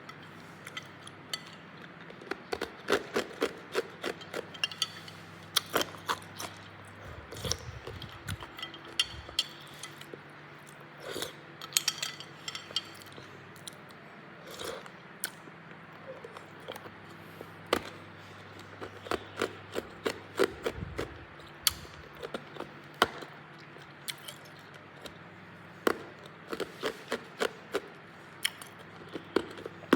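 Hard cube ice being bitten and crunched in the mouth: clusters of sharp cracks with short pauses between bites.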